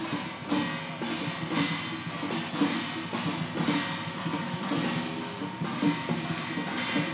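Chinese temple procession percussion: drums, gongs and cymbals struck together in a steady repeating rhythm, the cymbal crashes ringing over the drum beats.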